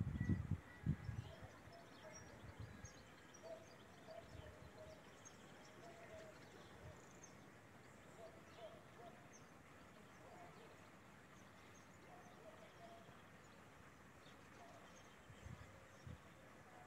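Faint outdoor ambience with scattered short bird chirps, and a few low thumps in the first second and again near the end.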